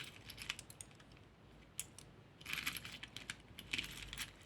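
Jewelry clinking and being tapped: a string of small, sharp metallic clicks and jingles, busiest past the middle.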